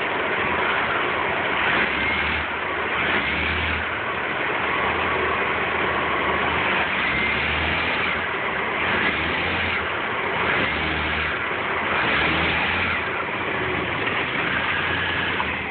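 Car engine revved in short repeated blips, about every second and a half, while held in gear against the brakes: a brake-torque test that rocks the engine on its mounts to show a loose or worn engine mount.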